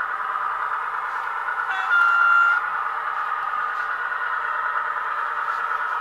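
Roco model SNCF X 2800 railcar with a digital sound decoder running along the track: a steady recorded diesel engine sound from the model's small speaker, with one short horn toot about two seconds in.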